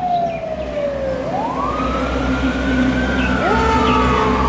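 Fire engine siren wailing: one long tone slides down, then climbs slowly and eases down again, and a second siren tone rises in about three and a half seconds in, over the low rumble of the engine and traffic.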